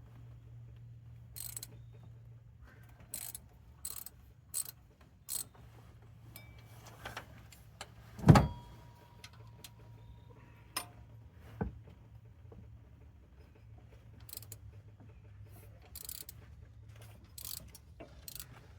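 Ratchet wrench clicking in short strokes and metal tools clinking, loosening the water pump bolts on a Chevy 5.3 V8. One loud metallic clank about eight seconds in rings on briefly. A steady low hum runs underneath.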